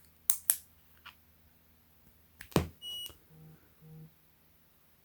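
Several sharp plastic clicks as the USB Type-C to 3.5 mm adapter and cable plugs are handled and pushed in, the loudest with a thump about two and a half seconds in. A short high electronic beep follows, then two brief low tones.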